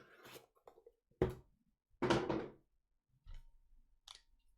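Trading-card box and packs being handled on a table: a sharp knock about a second in, then a louder, longer thump-and-rustle about two seconds in, with a few faint taps after.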